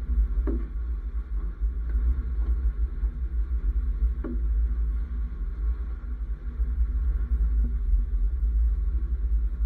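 Low, steady rumble of a Nissan X-Trail T30 driving slowly over a rough gravel track, the body shaking on the uneven ground. Two short falling squeaks come about half a second in and again about four seconds in.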